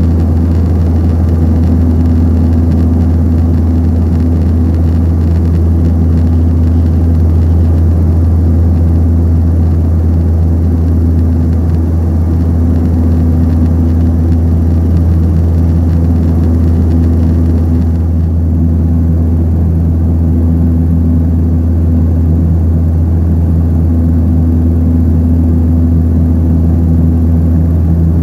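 Antonov An-24's two Ivchenko AI-24 turboprop engines and propellers in flight, heard inside the cabin by the wing: a loud, steady low drone, with a higher tone above it that swells and fades every few seconds.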